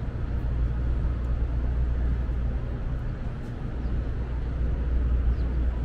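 Steady low engine rumble over a constant outdoor city background.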